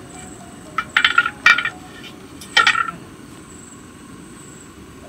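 Aluminium cooking pan clanking and ringing as it is set and shifted on a wood-fire stand: a quick run of metallic clinks about a second in, and another sharp clank near the three-second mark.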